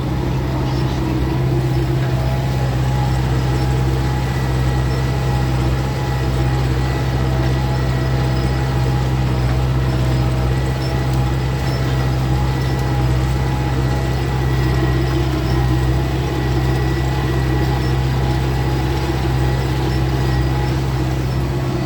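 Belarus 820 tractor's four-cylinder diesel engine running steadily at a constant speed while ploughing, with no revving or changes in pitch.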